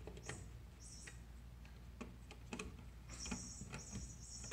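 Flathead screwdriver working the terminal screws of a thermostat's circuit board: faint scattered clicks and taps, with short high-pitched scraping squeaks, several in a row in the second half.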